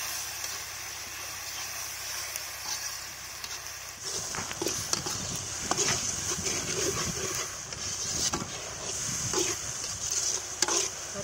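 Onion and tomato masala sizzling in oil in a kadai over a wood fire. From about four seconds in, a perforated metal ladle stirs and scrapes it around the pan.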